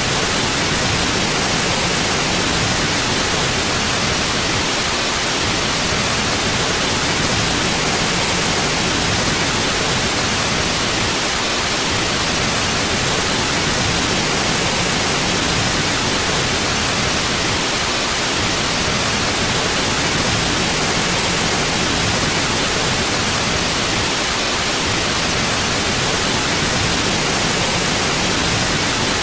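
Steady white noise: an even hiss with no rhythm, tones or changes, brightest in the upper range.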